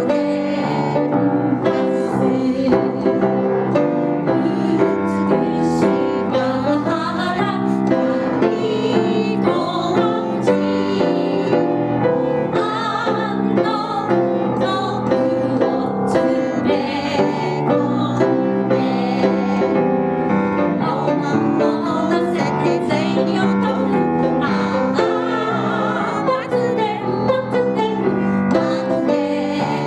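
A comic Japanese song sung into a microphone, with piano accompaniment, playing on without a break.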